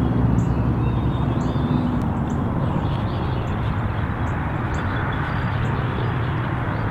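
Steady outdoor field ambience: an even low rumble with faint, short, high chirps scattered through it.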